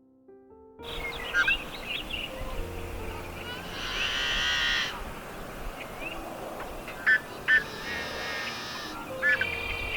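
Outdoor birdsong: many short chirps and whistles, with three longer, harsh, buzzy calls, about four seconds in, near eight seconds, and at the very end.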